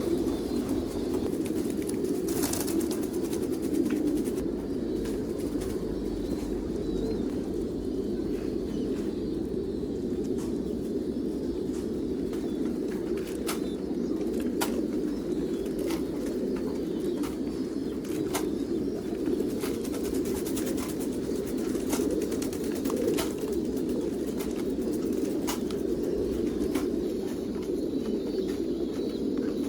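A flock of domestic pigeons cooing together in a steady, dense low chorus, with scattered sharp taps and clicks over it.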